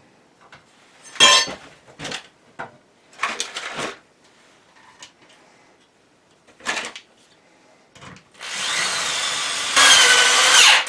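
Metal parts clank a few times as they are handled. Then a Ryobi power drill runs against a metal bracket for about two and a half seconds with a whine, getting louder near the end and stopping abruptly.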